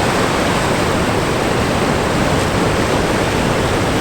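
Ocean surf washing onto the shore: a steady rush of breaking waves.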